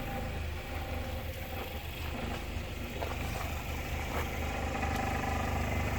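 Honda Fit's four-cylinder engine idling steadily in drive with the steering turned, with a few faint ticks over the hum. The exhaust is vibrating, which the owner takes for worn, stretched exhaust hangers letting the exhaust tap on a support bar.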